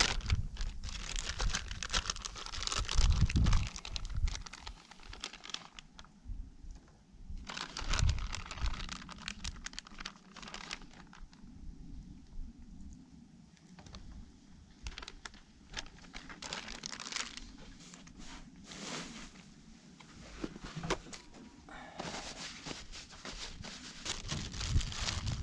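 Zip-lock plastic bag crinkling and rustling as it is handled and sausages are drawn out of it. The crinkling comes in several separate spells, with a few low thumps among them.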